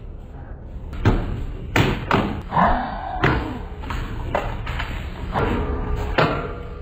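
A series of dull thumps and knocks, about six over a few seconds, over a low rumble.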